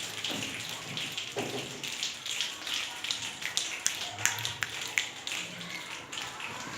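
A class of children imitating rain with body percussion: a soft hiss under a patter of many quick taps and snaps that thickens into a downpour midway, then thins out again.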